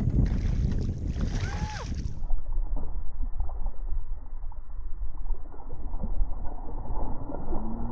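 Low rumbling wind and handling noise on the microphone in a canoe, with scattered small knocks and a brief squeak about a second and a half in.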